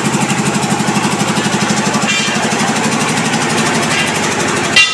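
An engine running steadily with a fast, even putter.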